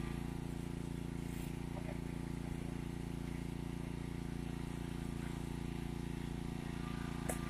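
Small engine of a hydraulic rescue-tool power unit running steadily at a constant speed, an even low drone, with one sharp click near the end.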